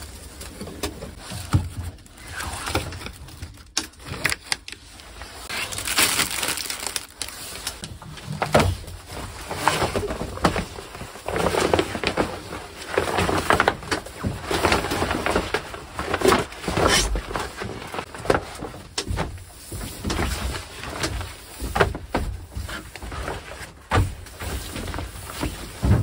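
Stiff oilcloth tablecloth crinkling and rustling as it is shaken out, unfolded and smoothed over a wooden table, in irregular bursts.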